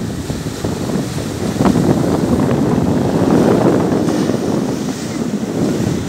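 Black Sea surf breaking and washing up a pebble beach, swelling louder about two seconds in, with wind buffeting the microphone.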